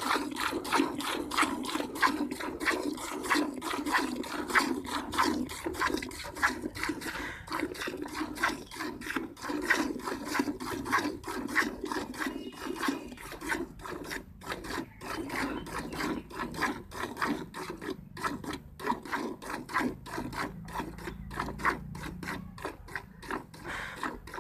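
Cow being milked by hand: streams of milk squirting into a pail in a steady rhythm of about four squirts a second.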